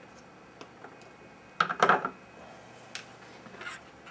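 A few light clicks and a short clatter of small tools being handled on a workbench, loudest about one and a half seconds in.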